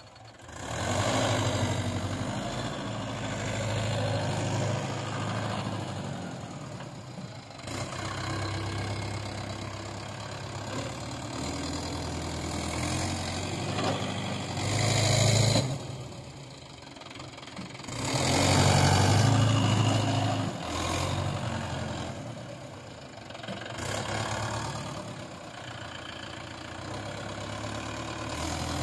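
Mahindra Yuvo tractor's diesel engine running while the tractor works a rear land leveler blade through loose soil. The engine note rises and falls several times as the tractor pushes and backs over the dirt piles.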